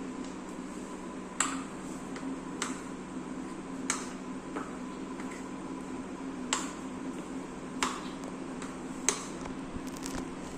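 A spoon clinking against the side of a bowl at a steady pace, about once every second and a half, as thick semolina batter is stirred. A steady low hum runs underneath.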